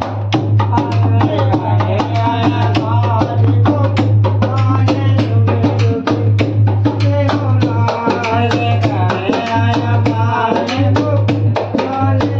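A folk celebration song sung to a dholak drum: quick, busy drum strokes under a singing voice, with a steady low hum beneath.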